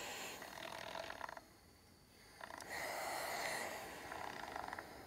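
Tefal Aquaspeed steam iron hissing out steam as it presses a quilt block's seams open, in two bursts with a short pause about a second and a half in.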